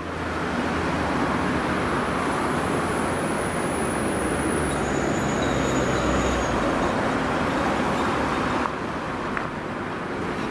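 Steady rush of traffic on a multi-lane highway as cars and a lorry pass, easing a little about nine seconds in.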